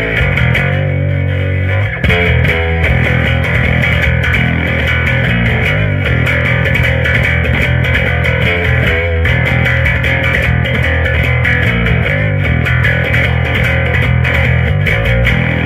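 Custom electric bass with humbucker and Precision pickups, finger-played through a bass amp cabinet with light overdrive: a continuous run of low, growling notes.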